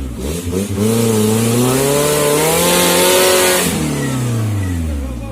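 Suzuki Jimny 4x4 engine revved hard under load off-road: the revs climb from about a second in, hold high with a rushing hiss, then fall away near the end.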